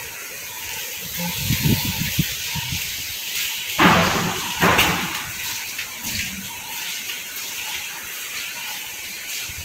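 Footsteps and scuffing of people walking down a hallway, over a steady hiss from the phone's microphone, with two short loud rushes of noise about four and five seconds in.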